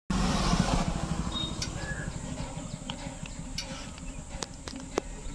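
A low, uneven rumble with a few sharp clicks and scrapes as a spiral reamer is pushed and twisted into the puncture in a tubeless motorcycle tyre.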